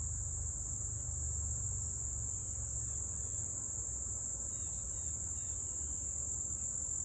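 Steady, unbroken high-pitched chorus of insects stridulating, over a low rumble, with a few faint chirps in the middle.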